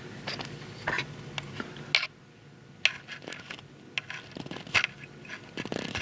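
A few sharp, irregularly spaced clicks and light metallic taps from fly-tying tools and hands working at the vise.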